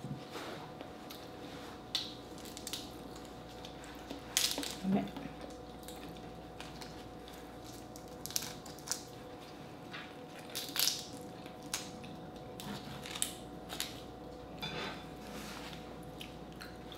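Shellfish being peeled and eaten by hand: scattered short cracks, clicks and wet crackles as shrimp shells are pulled off and mussel shells are handled.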